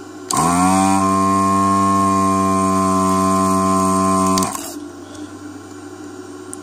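SS-331B desoldering station's vacuum pump switching on, its whine rising in pitch as it spins up, then running steadily for about four seconds before cutting off. It is sucking molten solder out of a circuit-board joint through the hot desoldering gun.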